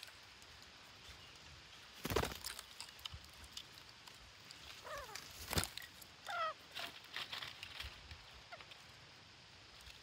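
Green parakeets at a stump nest hole giving a few short squawks that fall in pitch, two runs of them around the middle, among sharp knocks and scrapes on the wood as they clamber and peck at the stump.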